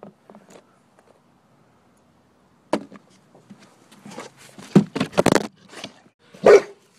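Camera handling noise on a wooden bench: irregular knocks, bumps and rubbing, with a sharp click about three seconds in and a loud thump near the end.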